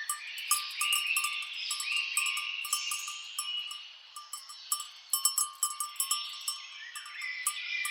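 Cowbells on grazing cattle clanking irregularly, many quick strikes, with birds calling and chirping over them.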